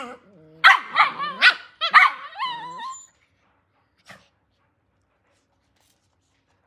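Pomeranian puppies play-fighting: a low growl, then a string of high yips and barks ending in a falling whine, which stops after about three seconds. A single faint tap follows about four seconds in.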